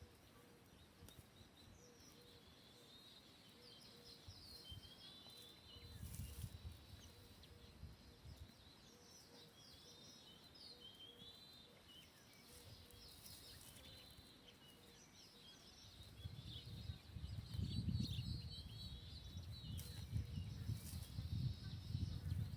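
Many small birds chirping and twittering in quick, short notes, with a low rumbling noise that grows louder in the last several seconds.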